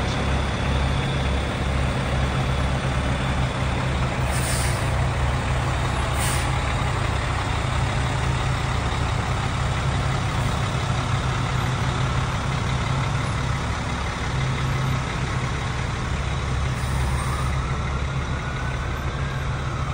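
A large vehicle's engine runs with a steady low rumble, with two short air-brake hisses about four and six seconds in. Near the end a siren winds up in pitch and starts to fall.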